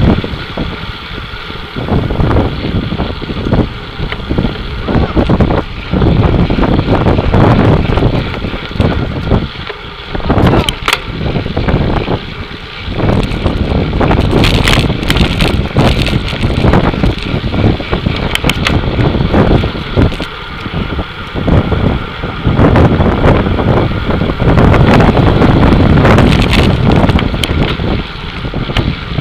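Wind buffeting the microphone of a camera mounted on a road-racing bicycle riding in a peloton: loud gusty rushing that swells and dips every second or two, with a few sharp clicks around the middle.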